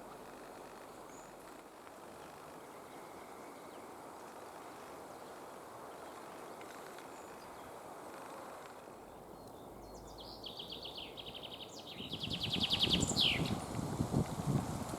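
Faint outdoor background at first, then about ten seconds in a songbird sings a fast trill of repeated notes that ends in a quick downward flourish. A low rustling rumble starts near the end and is the loudest sound.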